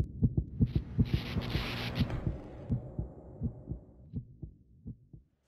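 Intro logo sound effect: a run of deep thumps, several a second at first, then spacing out and fading away, with a hissing whoosh laid over them during the first two seconds.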